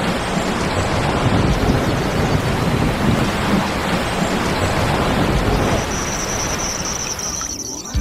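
Heavy rain falling steadily, with a low rumbling underneath. A thin, steady high tone joins about six seconds in, and the rain thins just before the end.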